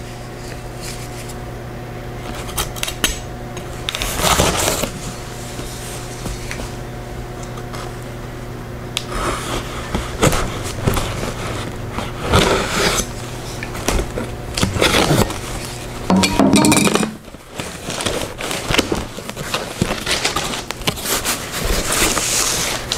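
A cardboard box being opened, with irregular scraping and scratching as a blade works along the tape and cardboard and the flaps are pulled back. Packing paper rustles near the end. A steady low hum runs underneath for most of it.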